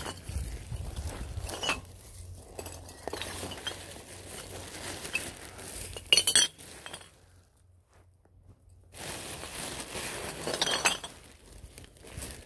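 Glass bottles clinking as rubbish is gathered into a plastic bag, with two sharp clinks, one about six seconds in and one about eleven seconds in, amid rustling handling noise.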